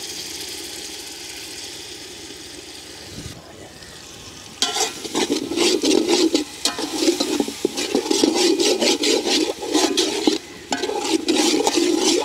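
Masala sizzling steadily in an aluminium pot as yogurt goes in. About four and a half seconds in, a steel slotted spatula starts stirring briskly, scraping against the pot in quick strokes.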